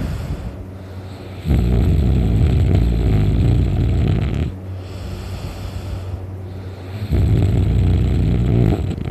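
A sleeping man snoring heavily: two long, loud, rough snores, one starting about a second and a half in and one about seven seconds in, with quieter breaths between them. The uploader likens the sound to a bear growling.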